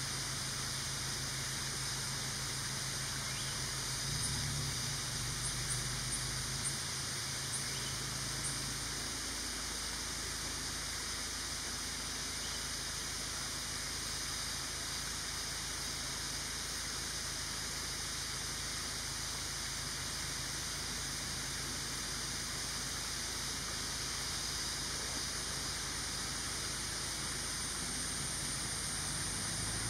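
Steady outdoor natural ambience: an even hiss with a thin high drone, and a few faint short high chirps between about four and nine seconds in.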